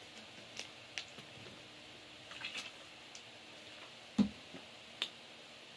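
A quiet pause with a few faint clicks, then one sharper knock about four seconds in, as a plastic bottle and a cup are handled and set down.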